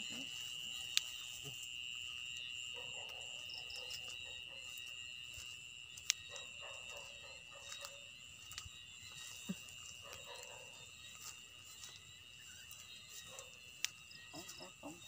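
Night insects chirring in a steady high-pitched drone, with the brushing of footsteps through grass and a few sharp clicks.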